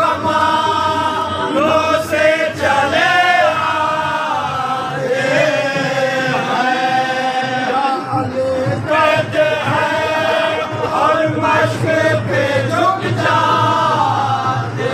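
Men chanting a Muharram noha (mourning lament) together, in long held lines that rise and fall in pitch.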